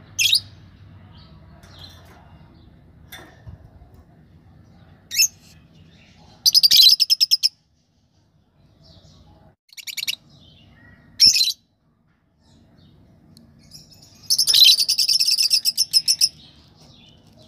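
Lovebirds calling inside a nest box: sharp high chirps, with two rapid stuttering trains of chirps, one about a second long and a longer one of about two seconds near the end.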